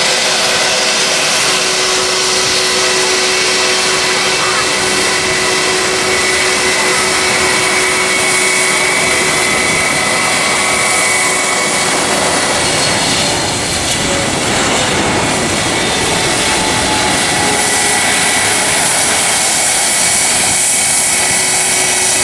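Boeing 777-200 jet airliner on final approach: a loud, steady engine rush with a high whine, and a falling tone about two-thirds of the way through as it passes low overhead.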